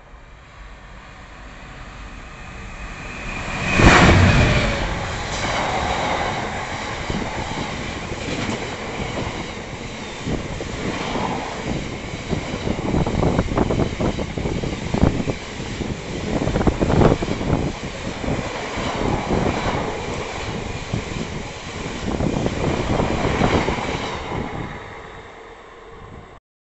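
Freight train passing close by at speed. The locomotive's pass peaks sharply about four seconds in, followed by a long rake of hopper wagons with wheels clicking and knocking over the rail joints, fading away near the end.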